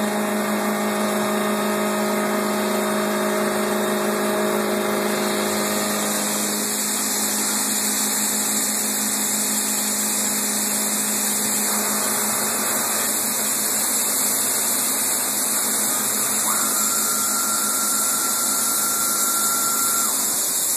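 CNC wood lathe running steadily as it turns a baseball bat: a constant machine hum under a dense hiss of wood being cut. Some of the steady tones in the hum drop away about six seconds in, and a thin high whine comes in for a few seconds near the end.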